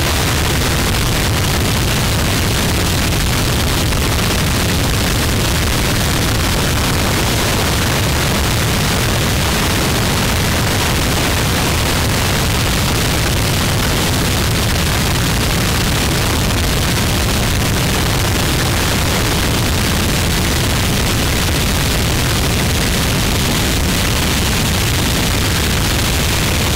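Harsh noise recording: an unbroken wall of noise from deep rumble to high hiss, at a constant loud level, with no beat, tune or pauses.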